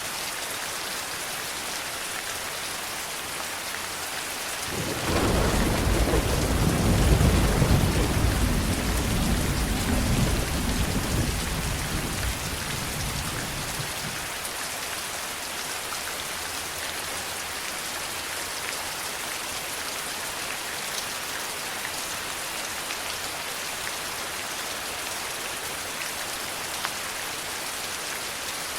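Steady heavy rain, with one long roll of thunder that breaks in about five seconds in, swells, and rumbles away over the next nine seconds.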